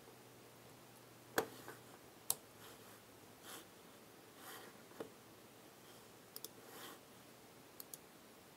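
Faint computer mouse clicks: a few single clicks and two quick double clicks, with soft brief rustles of handling between them.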